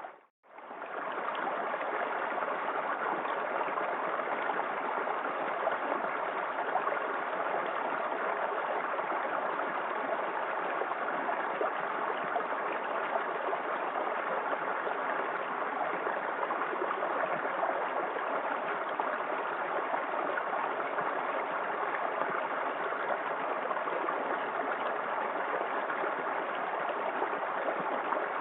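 Small waterfall in a forest creek: a steady rush of falling and flowing water. The sound cuts out for a split second right at the start and swells back within the first second.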